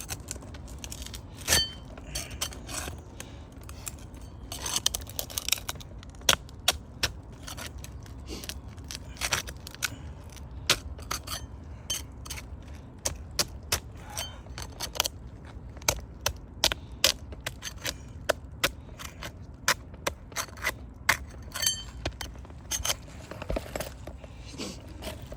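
Hand tools working old asphalt 3-tab shingles: many sharp, irregular clicks and scrapes, some in quick clusters, over a low steady rumble.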